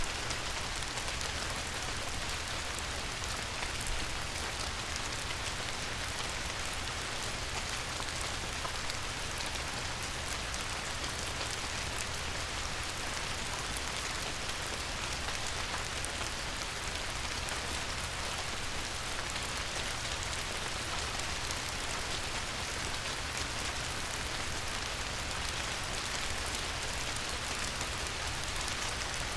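Light rain falling steadily on a river, a constant patter of fine drops hitting the water.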